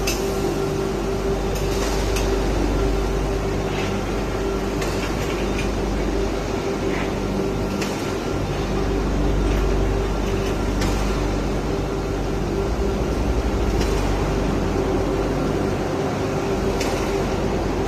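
Steady mechanical hum of workshop machinery, with a constant tone and a low rumble, and a few faint knocks scattered through it.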